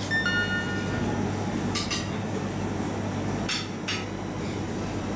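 Dishes and cutlery clinking: a ringing clink near the start, then a few sharp clinks about two seconds in and again near four seconds, over a steady low hum.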